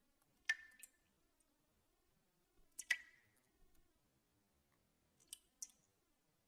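Three pairs of sharp clicks about two and a half seconds apart, each click with a brief ring, over near silence.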